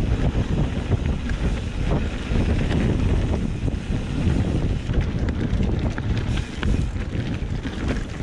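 Wind buffeting the microphone: a heavy, rumbling roar that rises and falls unevenly.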